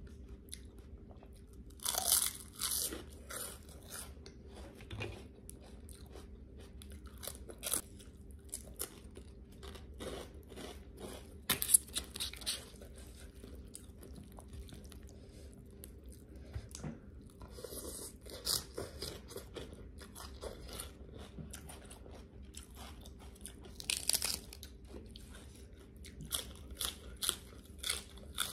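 Close-miked eating: crisp fried pork rinds (khaep mu) crunching loudly as they are bitten, in several bouts spread through, with quieter chewing of noodle salad between.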